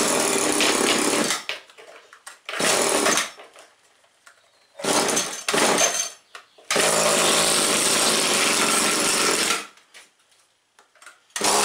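Two-stroke RedMax BC2300DL string trimmer engine being pull-started. It fires in short bursts a few times, runs for about three seconds and dies, then starts again near the end.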